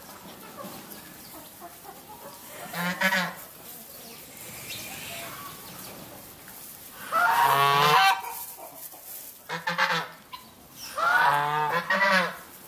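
Poultry calling: a series of loud, harsh calls, one about three seconds in, a longer one about seven seconds in, and a cluster near the end.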